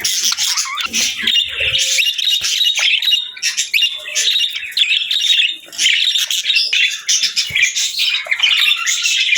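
Budgerigars chirping and warbling over one another in a steady, dense chatter, with short squawks.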